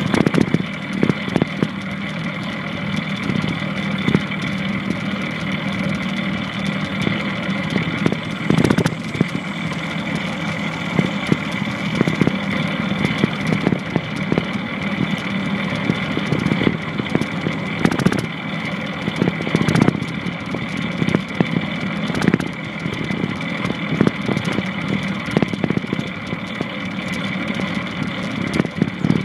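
Longboard wheels rolling over pavement, a steady rumble with frequent short knocks.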